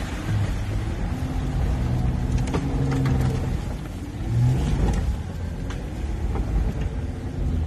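A Jeep's engine revving up and down as it powers through a creek crossing, heard from inside the closed cabin, with several sharp knocks along the way.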